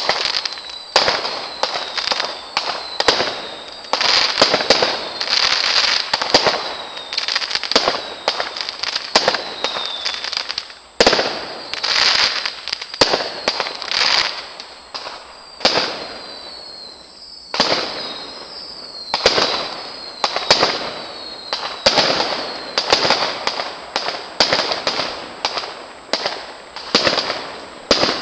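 Aerial fireworks display: a rapid, irregular series of bangs and crackling bursts, with several short whistles that fall in pitch. There is a brief lull a little past the middle.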